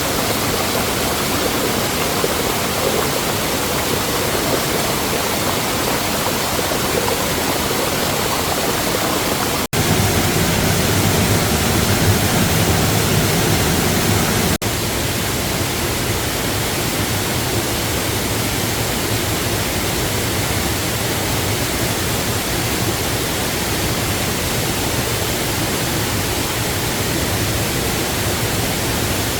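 Steady rush of a waterfall's falling water. About ten seconds in it abruptly gets louder and deeper for some five seconds, then drops back with another sharp cut.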